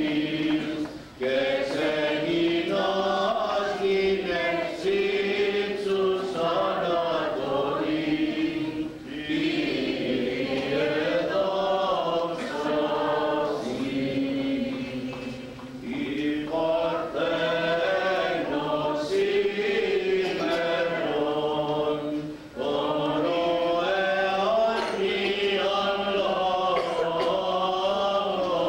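A priest and a small group of men chanting a Christmas hymn together, in long sung phrases with short breaks for breath about every seven seconds.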